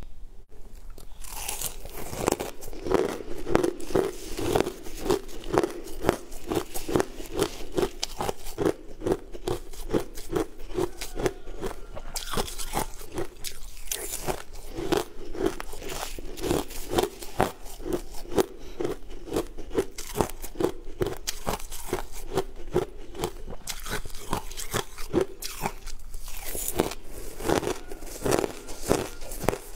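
Shaved ice being bitten and chewed close to the microphone: a fast, steady run of crisp crunches.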